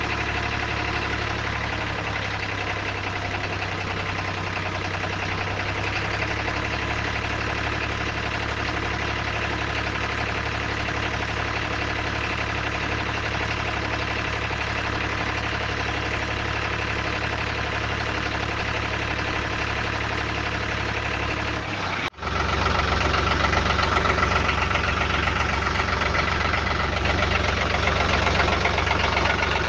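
Steady tractor engine sound, running evenly. It breaks off for an instant about three-quarters of the way through and comes back louder.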